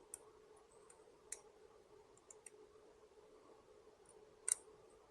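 A few sparse, light clicks of small parts being handled as wind cups are fitted onto an anemometer shaft, the sharpest a double click about four and a half seconds in, over a faint steady hum.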